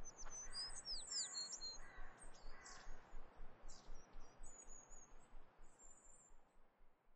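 Small birds chirping and twittering in high, thin calls, with a few quick downward-sweeping whistles in the first few seconds, over a faint outdoor hiss; it all fades out toward the end.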